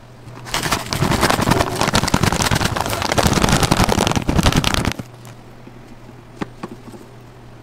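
Dry granular ingredients poured into a stainless-steel pan, making a loud dense crackling rustle for about four and a half seconds that stops abruptly. After that it goes quieter, with a few light ticks.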